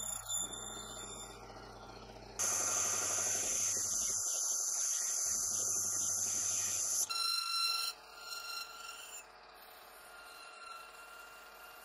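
Proxxon PD 400 mini lathe boring out a brass cylinder. The tool cutting the brass makes a loud hissing noise from a couple of seconds in, then a short ringing whine, before the lathe runs on more quietly near the end.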